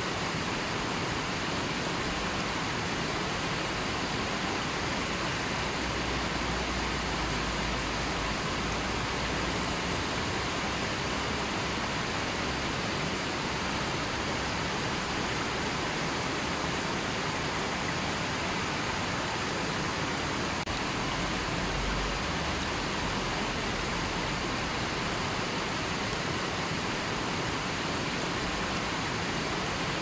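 Shallow river rushing over rocks: a steady, even rush of water.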